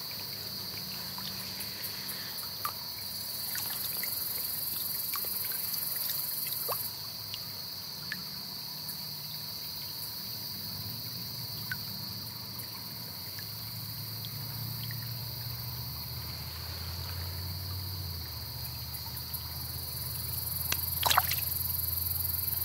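Steady high-pitched chorus of crickets and other insects over the low trickle of a small creek, with scattered small ticks and a brief splash of water near the end as the trout is let back into the water.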